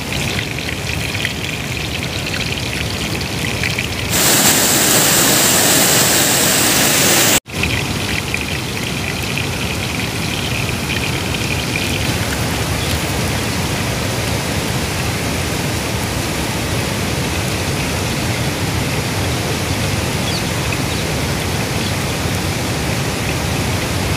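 Masala-coated whole fish frying in hot oil on an iron dosa griddle, a steady sizzle. About four seconds in, the sizzle turns louder and brighter for a few seconds, then cuts off suddenly before the steady sizzle returns.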